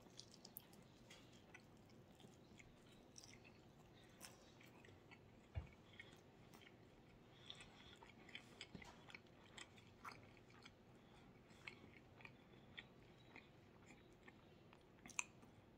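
A man biting and chewing a mouthful of sausage pan pizza: faint, irregular wet mouth clicks and smacks, with a couple of louder ones, one about five seconds in and one near the end.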